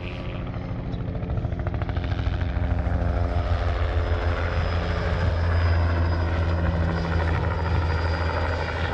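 Helicopter flying overhead, its rotor chop and engine drone growing louder to a peak about five seconds in, then easing off a little.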